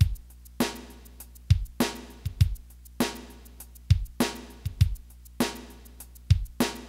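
Background music: a sparse drum-kit beat of bass-drum thuds and snare hits, with nothing else playing.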